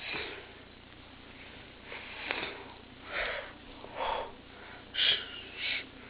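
A person making short breathy puffs of air, about six of them a second or so apart, like sniffing.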